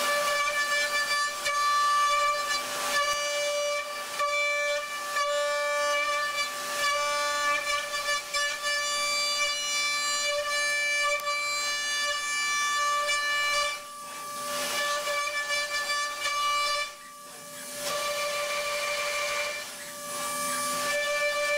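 A CNC machine cutting metal: a steady high-pitched whine, one pitch with overtones, that breaks off briefly several times.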